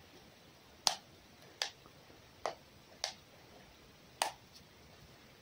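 Five short, sharp clicks at uneven gaps of roughly a second, over a quiet background.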